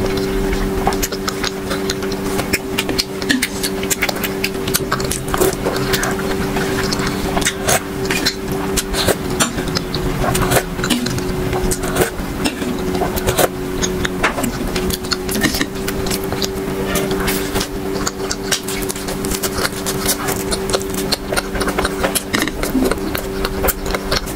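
Close-up eating sounds: milk from rasmalai sipped off a steel spoon, with wet mouth clicks, smacks and chewing following one another quickly. A steady low hum of a few fixed tones runs underneath.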